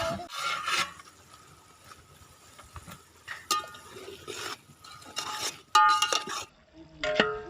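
Metal spoon stirring and scraping in a metal cooking pan, with several ringing clanks of metal on metal.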